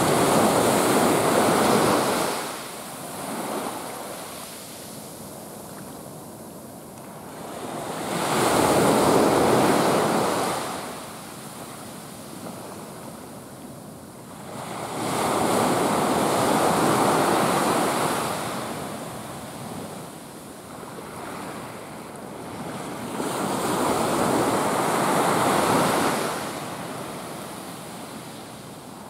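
Surf breaking and washing up on a sandy beach, swelling loud four times at roughly eight-second intervals.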